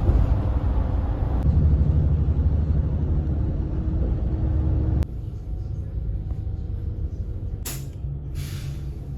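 Low, steady vehicle rumble that drops sharply in level about five seconds in, with two short hisses near the end.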